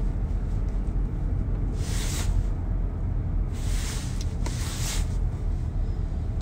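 Steady low rumble inside a car's cabin, with a few short hissy rustles about two and four seconds in.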